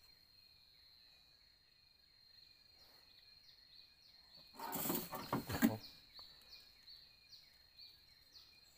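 A steady high insect drone with a short falling chirp repeating about twice a second. About halfway through, a loud burst of noise lasting about a second stands out above them.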